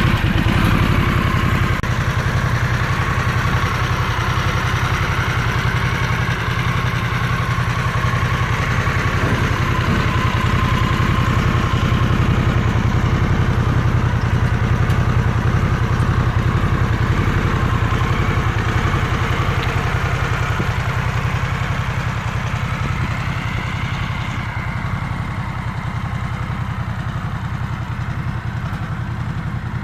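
Harley-Davidson Sportster S's Revolution Max 1250T V-twin running steadily on its stock exhaust, a continuous low engine note; the higher part of the sound drops away near the end.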